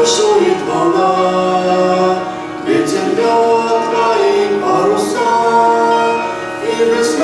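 Choir singing a hymn in slow, long-held chords.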